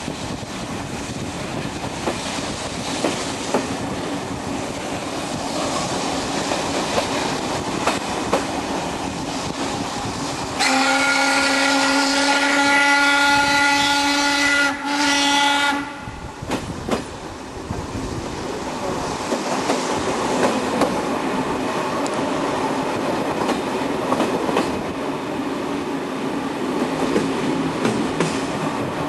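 Steam train running along the track with steady rail clatter. About a third of the way in the BDZ class 46 steam locomotive's whistle blows one long blast of about four seconds, then a short one after a brief break.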